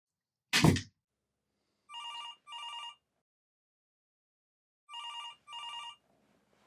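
A single thump, then a cordless phone ringing twice, about three seconds apart. Each ring is a pair of short electronic trills.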